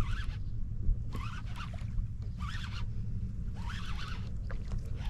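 Wind rumbling on the microphone while a baitcasting reel is cranked to bring in a hooked bass. Short higher-pitched sounds come about once a second over the rumble.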